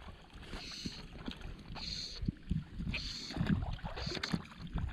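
Wind rumbling on the microphone, with a few soft water splashes against a boat.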